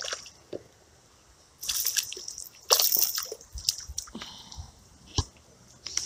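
A small hooked smallmouth bass splashing at the water's surface as it is reeled in on an ultralight spinning rod, in two short bursts of splashing, then a few single sharp sounds.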